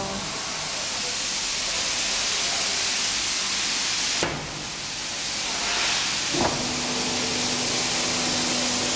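Steady, loud hiss of pressurised gas at an air spring vulcanizing press. A sharp clack about four seconds in, after which the hiss briefly drops, and another clack at about six and a half seconds, followed by a steady hum.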